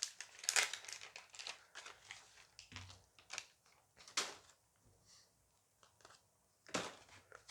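Foil booster pack being crinkled and torn open by hand: dense crackling rustle at first, then a few separate sharp crackles, the loudest near the end.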